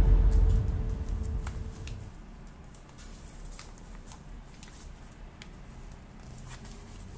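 Music fading out over the first two seconds, then faint, scattered crinkles and taps of hands handling a box wrapped in gift paper.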